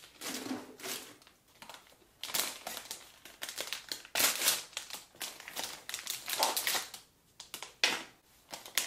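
Plastic toy packaging crinkling and rustling in irregular bursts as a clear wrapper is handled and a printed blind-bag pouch is torn open by hand.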